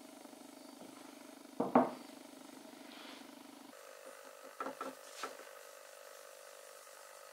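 A metal oil tin is set down on a wooden workbench with one sharp knock, and a few lighter knocks and clicks follow as the oiled board is handled. A steady low hum runs underneath and shifts higher a little past halfway.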